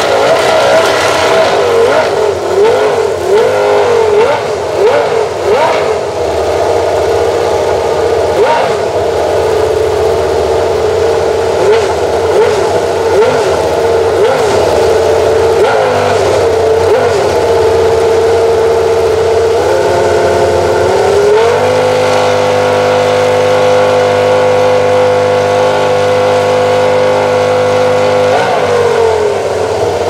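Minardi PS05 Formula 1 car's Cosworth V10 running hot in the garage during warm-up. For about twenty seconds it idles high with quick throttle blips. Then it is held at a steady raised rpm for about seven seconds and drops back near the end.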